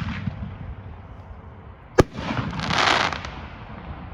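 Consumer firework cake firing: a sharp bang about two seconds in, followed by about a second of dense crackling hiss as the effect breaks, with another shot's report just at the start.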